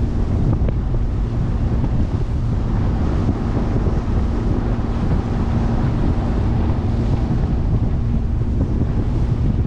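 Wind buffeting the microphone on the bow of a moving small motorboat, with a steady low engine hum underneath.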